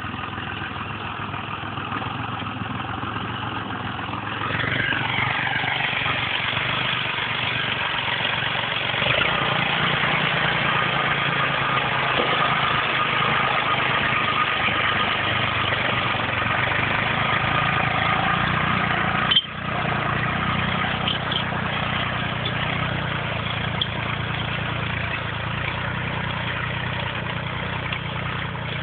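Tractor engine running steadily while pulling a plough, growing louder about five seconds in and again around nine seconds, with a brief break in the sound about two-thirds of the way through.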